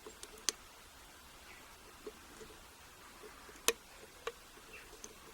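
Faint scattered metallic clicks of a hook pick working the pin stack of an American Lock A1100 padlock under tension, the sharpest about three and a half seconds in.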